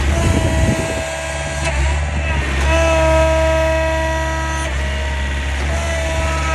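AECT 3500 compressed earth block machine running: a steady engine drone with a high hydraulic whine that rises and holds as the press cycles. The whine is strongest for about two seconds in the middle.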